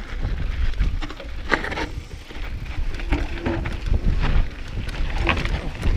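Mountain bike descending a rocky dirt trail, heard from a chest-mounted camera: tyres rumbling and the bike rattling over rock and loose dirt, with wind buffeting the microphone and a short squeal about three seconds in.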